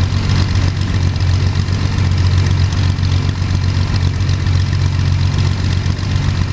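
Jabiru 3300 six-cylinder air-cooled aircraft engine running steadily at an even speed, turning the propeller, on its first run in a newly built Sonex.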